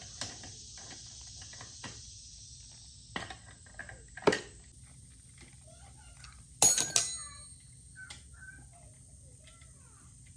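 Scattered clicks and knocks of an old air-compressor hose and its fitting being worked loose and removed, with a loud sharp burst about two-thirds of the way in.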